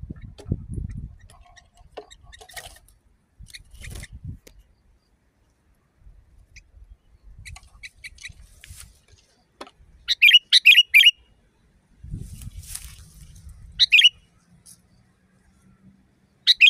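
Sooty-headed bulbul calling: a few faint chirps, then a quick run of four loud calls about ten seconds in, another loud call a few seconds later and one more at the end. Low rumbling noise at the start and about twelve seconds in.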